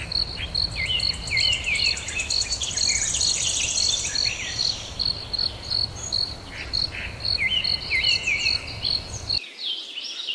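Outdoor nature ambience: a high chirp repeats evenly about three times a second, insect-like, over scattered bird chirps and calls. A fast high trill runs from about one to five seconds in, and a low background rumble cuts out near the end.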